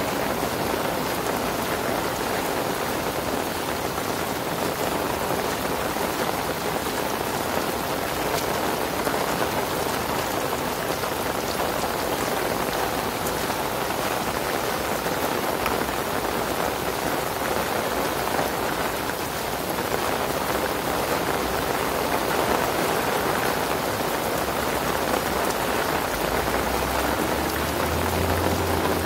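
Heavy rain falling steadily on soaked grass and a paved walkway, with water pooling on the ground. A low rumble joins in near the end.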